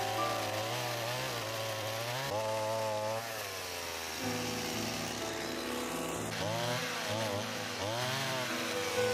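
Stihl chainsaw cutting into a wooden stump to hollow out a bowl, its engine pitch rising and falling several times as the chain bites into the wood and frees again.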